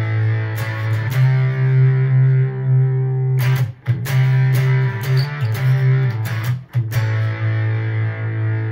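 Electric guitar played through a NativeAudio Fry Bread fuzz pedal: fuzzy, sustained low notes and chords, restruck a few times, with brief breaks about four seconds in and again near seven seconds.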